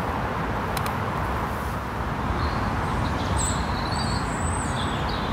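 Steady noise of road traffic on a main road, vehicles passing without a break.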